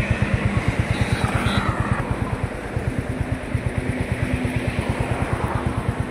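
Motor scooter riding along a road, its engine and road noise heard as an even low throb of about eight pulses a second.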